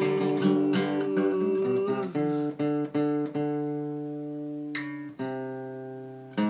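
Acoustic guitar playing the closing chords of a song: a held chord, a few quick strums about two seconds in, then chords left ringing and slowly fading, with one more strum near the end.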